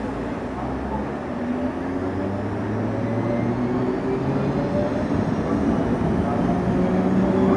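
CPTM Série 1700 electric multiple unit running, its motor hum made of several tones that rise slowly in pitch and grow louder as the train picks up speed, over a steady running rumble.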